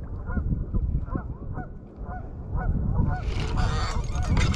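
Geese honking over and over, short calls one after another, over the low rumble of wind on the microphone. About three seconds in a rushing hiss joins them for a second or so.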